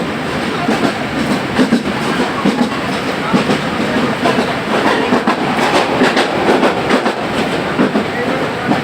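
Train running on the rails, a steady loud rumble with the clickety-clack of the wheels and irregular knocks and rattles.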